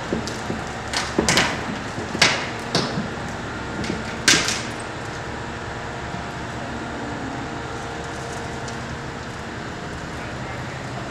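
A run of sharp metal clanks and knocks, about six in the first four and a half seconds, from heavy work around a steam locomotive's driving wheels during re-railing. A steady background rumble carries on after the knocks stop.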